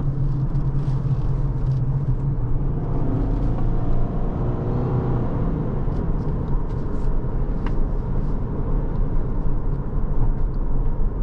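Steady road and engine noise inside the cabin of a 2021 Subaru Forester with a naturally aspirated 2.5-litre engine, driving on pavement. The engine note rises a little about three seconds in, as if accelerating.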